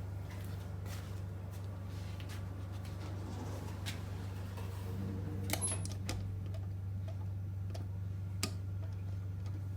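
Otis Gen2 lift car travelling between floors: a steady low hum from the drive, with a few sharp clicks now and then.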